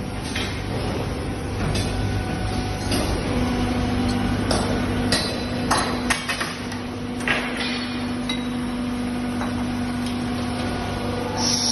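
Steel tongs and casting tools knocking and clanking against steel billet moulds and their stand: a dozen or so sharp, irregular metal strikes, most of them in the middle seconds, over a steady machine hum.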